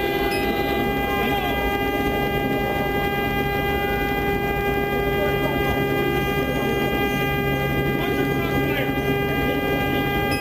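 A steady, unchanging droning tone over a low hum, held without a break, with a faint noisy background.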